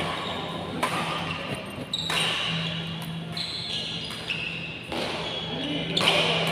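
Badminton rally: about four sharp racket strikes on the shuttlecock, a second or more apart, with shoes squeaking on the court between them.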